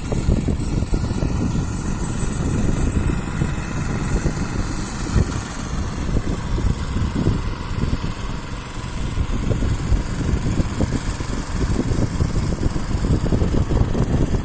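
A small engine running steadily, a dense low rumble that wavers unevenly without stopping.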